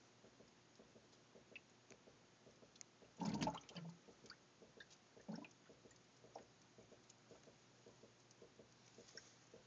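Gas from fermentation bubbling out of blow-off tubes from glass carboys into a pitcher of liquid: faint scattered pops and gurgles, with a louder glug a little over three seconds in and a smaller one about five seconds in. The bubbling is the sign of active fermentation giving off carbon dioxide.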